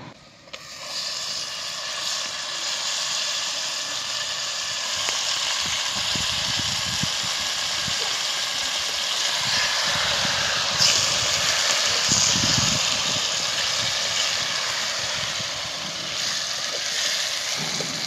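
Raw mutton pieces sizzling steadily as they hit hot oil with fried onion and turmeric, the sizzle starting about half a second in. A wooden spatula stirring and knocking in the pot can be heard through the middle.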